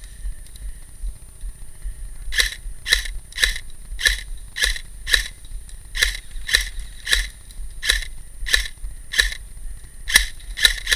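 Airsoft gun firing single shots at a steady rate of about two a second, some fifteen in all, starting about two seconds in, with a brief pause near the end.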